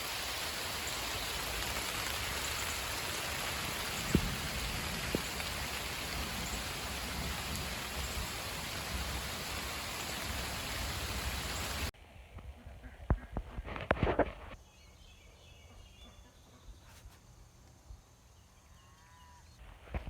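Steady rain falling, an even hiss for about twelve seconds with a couple of faint knocks in it. Then it cuts off suddenly to a much quieter background with a few sharp knocks, and faint short pitched calls near the end.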